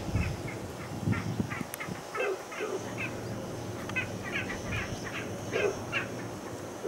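A bird calling again and again in short, harsh notes, some coming in quick runs of two or three.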